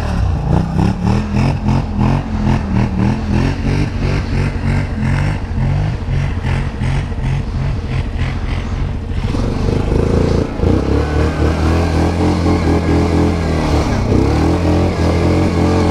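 ATV engine working hard on a slippery climb, its sound surging and falling in rapid pulses as the tyres spin. About nine seconds in it changes to a steady, even engine drone.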